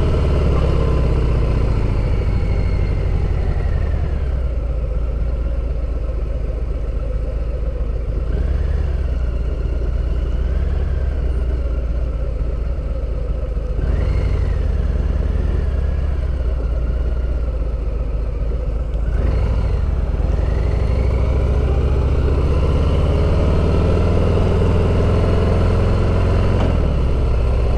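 Harley-Davidson V-twin engine running while the motorcycle is ridden. The engine note falls as the bike slows over the first few seconds, stays low and steady, then climbs again as it accelerates in the last several seconds.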